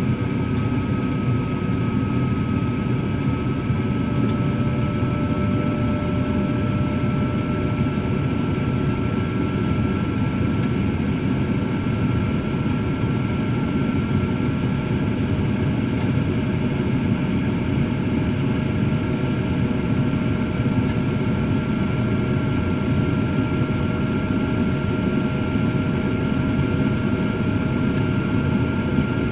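Cosori air fryer oven running steadily while cooking: a constant fan whir with a thin whine that creeps very slightly higher in pitch.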